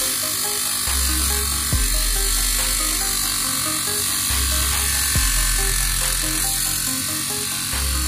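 A 775 DC motor spins a small cutting disc through a thin sheet, making a steady high buzzing whine with a grinding edge. Background music with a repeating bass line plays underneath.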